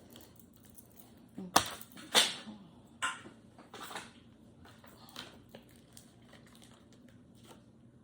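Handling noises: four sharp knocks and rustles in the first four seconds, then a few faint clicks.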